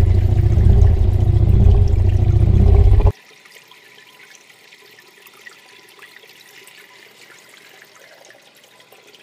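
Loud, low rushing water noise, like heavy rain, that cuts off suddenly about three seconds in, leaving only a faint hiss.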